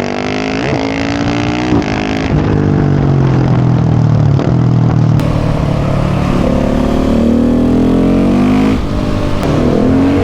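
KTM 690 SMC R single-cylinder engine through a full Leo Vince exhaust, accelerating hard. The pitch climbs and then drops sharply at each of a few upshifts.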